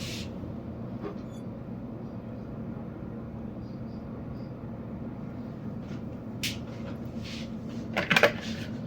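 Steady low hum in a small kitchen, then a few short scraping and knocking sounds near the end as the oil bottle and measuring cup are handled while measuring the vegetable oil.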